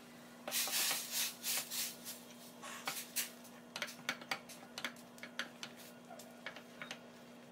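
Spatula stirring rice flour into boiling water in a stainless-steel pan: irregular scraping and rubbing strokes against the metal, with a few sharper scrapes, as the flour is worked into a stiff dough. A faint steady hum runs underneath.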